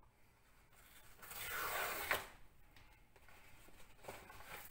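Padded paper mailer envelope being torn open: a rasping rip lasting about a second near the middle, then faint rustling and crinkling of the paper as it is handled.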